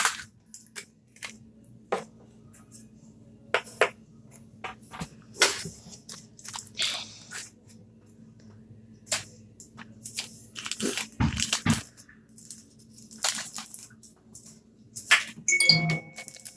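Plastic toy packaging being handled and opened by hand: scattered clicks, cracks and crinkles of plastic capsule and wrapper.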